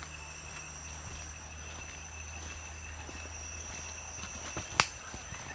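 Rainforest insects making a steady, high two-pitched drone, with soft footsteps on the forest trail. A single sharp snap or click stands out near the end.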